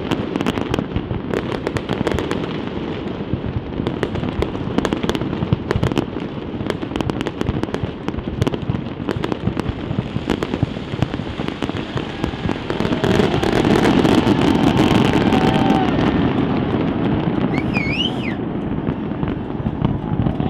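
A fireworks display bursting and crackling in rapid, dense succession over a constant rumble. It grows louder about two-thirds of the way through, and there is a brief rising-and-falling whistle near the end.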